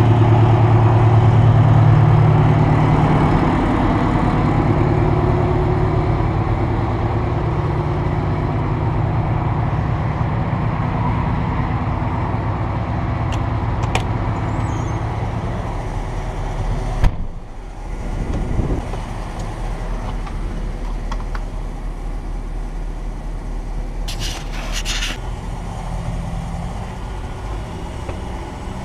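Rear-mounted diesel engine of a 1968 Silver Eagle bus idling steadily, loudest at first and a little softer later on. A single sharp knock comes about two-thirds of the way in.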